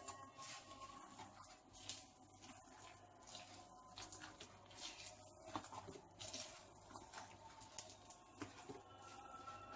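Near silence: faint room tone with a few scattered soft taps.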